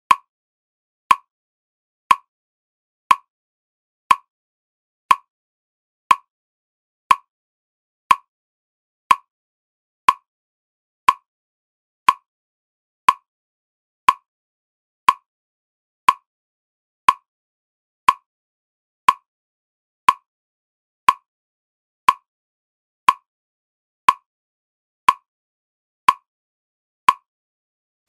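A single short tick once every second, evenly spaced, with silence between: a steady one-second pacing tick to breathe and focus by.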